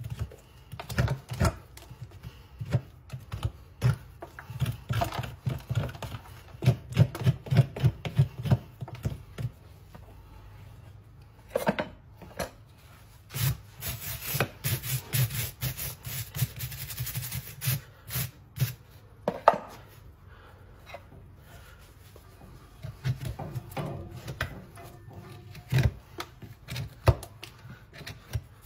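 Horse hoof being trimmed with hand tools: a run of short scraping cuts and knocks on the hoof horn, then around the middle a few seconds of harsh, hissing rasp strokes filing the hoof, followed by more scattered scraping strokes.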